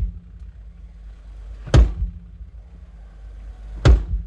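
A drum struck twice through the PA, single sharp loud hits about two seconds apart over a steady low hum: a drum being checked one hit at a time while the live sound is mixed.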